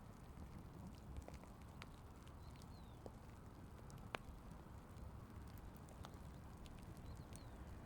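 Faint scattered ticks of raindrops, one sharper tick about four seconds in, over a faint low rumble. Twice a brief faint high chirp.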